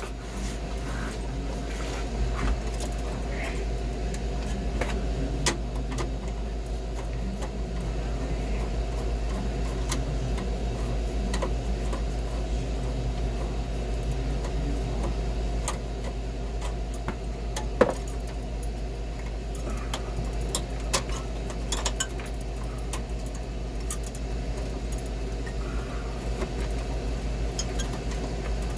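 Steady low machinery hum with scattered small metallic clicks and clinks as the clamp holding a TXV sensing bulb to a freezer evaporator's copper suction line is worked loose with a screwdriver. One sharper click stands out about eighteen seconds in.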